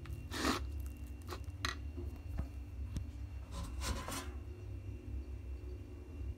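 A metal spoon stirring and scraping thick, lumpy finger-millet porridge (uji) mix in a ceramic bowl: two longer scrapes, about half a second and about four seconds in, with a few light clicks of spoon on bowl between them. A steady low hum runs underneath.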